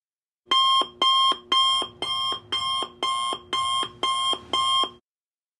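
Timer alarm going off at the end of the countdown: nine short electronic beeps, about two a second, starting about half a second in. It signals that the Pomodoro break interval is over.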